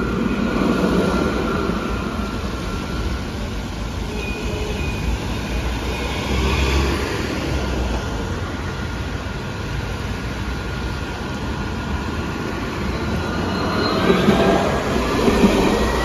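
Steel-wheeled electric light-rail trams passing close by. A high electric whine fades as one tram moves off. Near the end another tram passes with a rising whine and louder wheel-on-rail noise.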